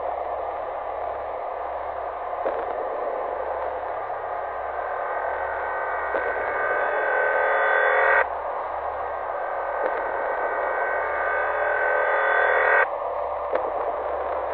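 Static-like noise with a low hum, swelling louder with ringing tones woven in, then cutting off abruptly, twice: a little past halfway and again near the end.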